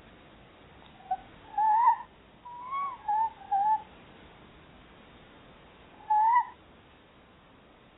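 A pair of tawny owls chattering to each other: a quick run of short, slightly rising calls between one and four seconds in, then one more call about six seconds in.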